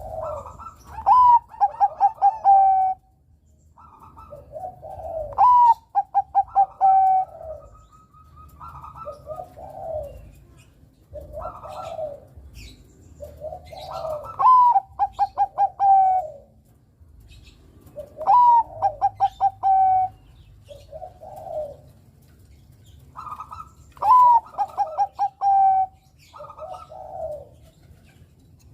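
A Bangkok-type zebra dove (perkutut) singing its cooing song. About five loud phrases, each a high first note followed by a quick stuttering run of short notes, alternate with softer, lower coos.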